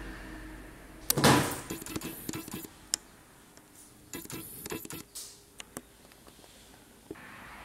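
Indoor handling noises: a loud knock about a second in, followed by scattered clicks, clinks and short clatters.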